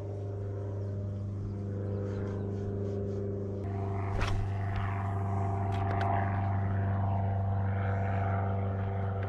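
Small Yamaha outboard motor running steadily at low speed, growing a little louder about four seconds in, with a few sharp clicks about four seconds in.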